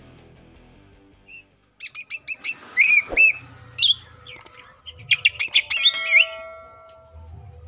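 Green leafbird (cucak ijo) singing: a quick string of high chirps, then loud slurred whistles that swoop up and down, and a second fast, varied run of notes near the end. The song is full of mimicked phrases (isian).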